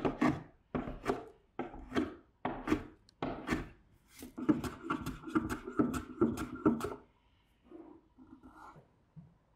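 Small wooden hand plane shaving the wooden handle of a carved measuring cup in short repeated strokes, about two a second, coming faster for a couple of seconds before stopping about seven seconds in. A few faint knocks of the wooden piece being handled follow.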